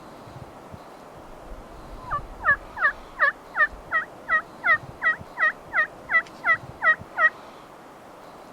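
A run of about fifteen turkey yelps, evenly spaced at roughly three a second, each note dropping in pitch; they start about two seconds in and stop near the end.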